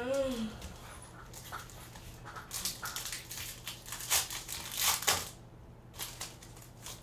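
Foil wrapper of a Pokémon trading-card booster pack crinkling in the hands, with irregular crackles mostly from about two and a half to five seconds in.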